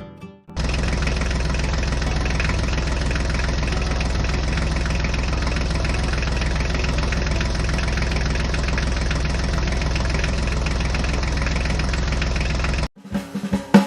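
An engine idling steadily and evenly, with a heavy low rumble, like a tractor engine. It starts abruptly about half a second in and cuts off sharply about a second before the end.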